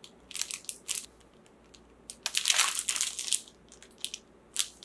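Clear plastic shrink-wrap on a notepad crinkling as it is handled, in irregular bursts with the longest and loudest about two to three seconds in, and a few sharp crackles near the end.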